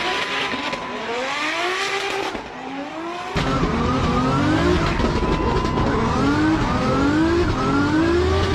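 Drift car engine revving hard in quick repeated rising sweeps as the car slides, with tyre squeal. About three seconds in the sound cuts abruptly from a trackside perspective to inside the car, becoming louder and fuller in the low end.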